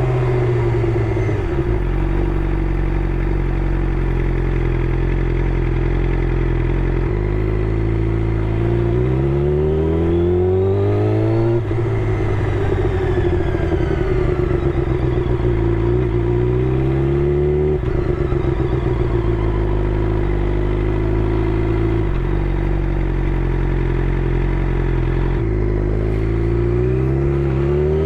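Suzuki GSX-R600's inline-four engine through an M4 GP slip-on exhaust, running with engine speed rising and falling between steady spells. The pitch drops near the start, climbs over a few seconds midway and breaks off sharply, falls slowly, then climbs again near the end.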